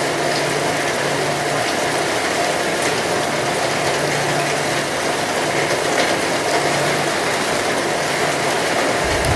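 Heavy rain falling steadily, a dense even hiss with scattered patter of drops.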